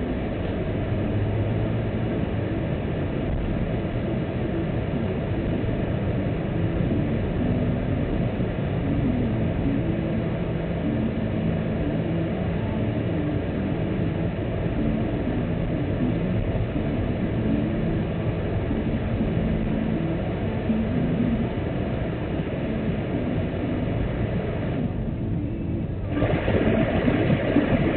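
Car engine and tyre noise from inside the cabin while driving along a rough, potholed street: a steady rumble with a wavering engine note. It turns louder for about two seconds near the end.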